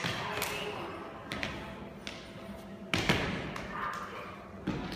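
Irregular sharp knocks and thuds from two kali practitioners sparring at close range, with weapon contact and quick footwork on a hard floor. The loudest knock comes about three seconds in.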